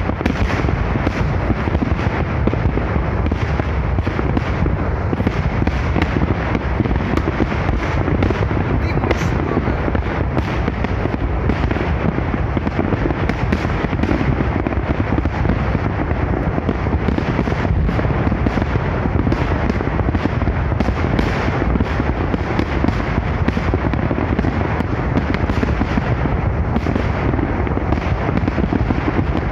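Massed fireworks salute: a dense, unbroken barrage of shell bursts and crackle, with a heavy low rumble.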